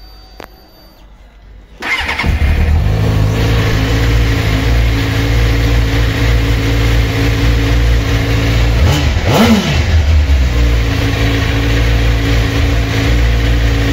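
A 2001 Suzuki GSX-R600 K1's inline-four engine starts about two seconds in and settles into a steady idle. Near the middle it gives two quick throttle blips that rise and fall in pitch, the second higher, then it returns to idle.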